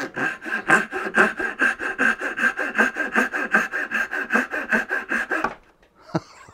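Suizan dozuki Japanese pull saw cutting a dovetail in a board, fast even strokes of about five a second that stop about five and a half seconds in.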